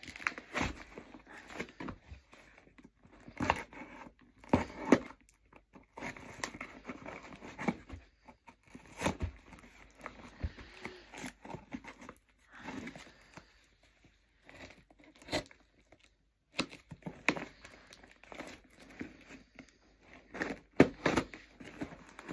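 A parcel box being torn open by hand: packaging tearing, crinkling and rustling in irregular bursts with sharp clicks and short pauses.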